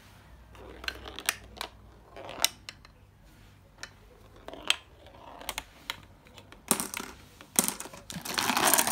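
Scattered sharp clicks of glass marbles and hard plastic marble-run pieces knocking together as they are handled on the track, with a louder, denser rattling burst near the end.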